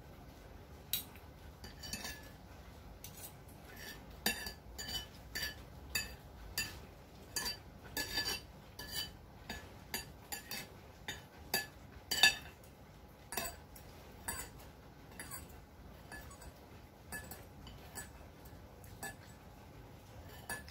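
Cutlery clinking and scraping on a plate while scooping up the last of the quinoa and curry: short, irregular clinks about once or twice a second, the loudest about twelve seconds in.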